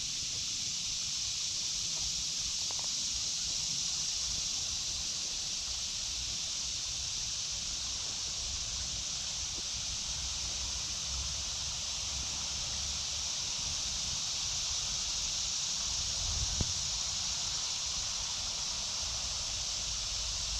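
A steady, unbroken high-pitched chorus of cicadas (the "locusts" of the woods), over a low rumble.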